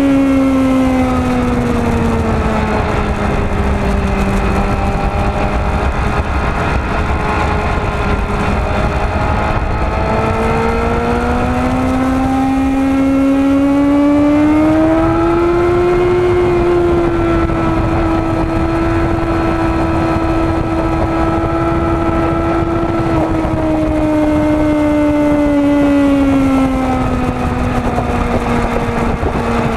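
Yamaha WR250R supermoto's 250 cc single-cylinder engine running hard at high revs, heard onboard over wind rush. The engine note drops in the first few seconds, climbs steadily about ten to sixteen seconds in, holds, then falls again near the end.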